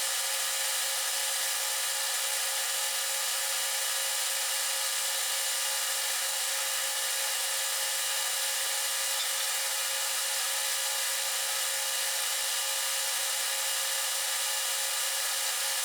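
Electric drill running at one steady speed while drilling handle pin holes through a steel knife blank, its pitch and loudness unchanging.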